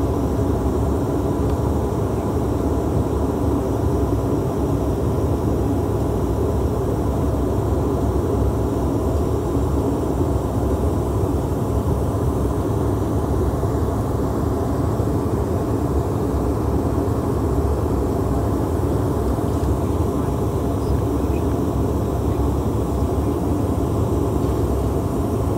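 Steady cabin noise of a Bombardier CRJ-700 regional jet in flight: the drone of its two rear-mounted turbofan engines and the rush of airflow, low and constant, with a faint steady whine on top.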